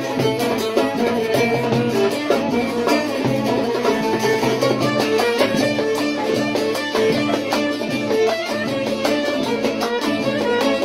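Bağlama (long-necked Turkish saz) playing an instrumental passage of a Turkish folk song, a fast run of picked notes with no singing.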